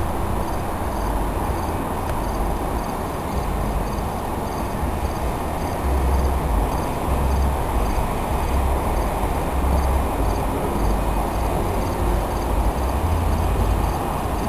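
Insects chirping in a steady repeating pattern over a low, gusty rumble, with the faint running noise of an approaching NJ Transit Arrow III electric multiple-unit train, growing slightly louder about halfway through.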